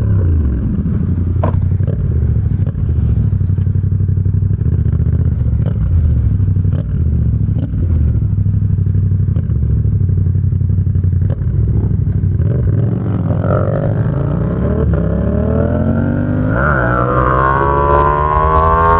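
Yamaha XSR700's 689 cc parallel-twin engine through an SC-Project exhaust, running low and steady for about twelve seconds, then accelerating with a rising note. The pitch dips briefly partway through the climb as it shifts up, then rises again. A few sharp clicks sound over it.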